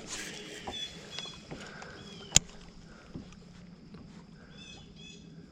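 Quiet open-water ambience with faint bird chirps near the end and one sharp click a little over two seconds in.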